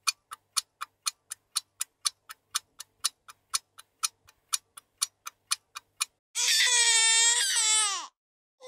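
Clock ticking about four times a second, stopping about six seconds in; then a baby crying for about two seconds, the wail falling in pitch at the end.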